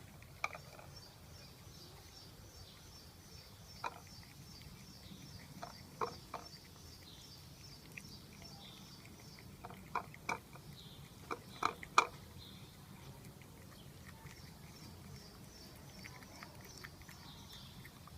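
A cat eating boiled egg: scattered short wet clicks and smacks of chewing and licking, with a cluster of louder ones about ten to twelve seconds in.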